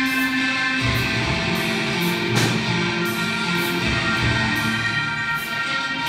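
Music played by a robotic machine band: mechanically played electric guitars over drums, with sustained chords that change about a second in and a sharp drum hit a little later.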